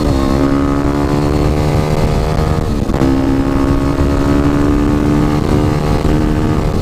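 Yamaha WR250R's single-cylinder four-stroke engine running under way at steady revs, with wind rush. The engine note drops sharply just as the sound starts and dips briefly again about three seconds in.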